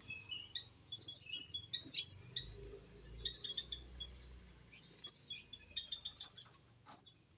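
Common ioras (cipoh) calling in an aviary: a run of short, high chirps and quick trills, repeated throughout.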